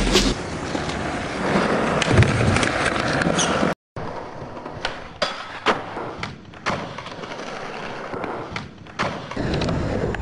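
Skateboard wheels rolling over rough asphalt with a steady grinding rush. After a brief cut there is a series of sharp wooden clacks and knocks from the board, the pops, tail slaps and landings of skating.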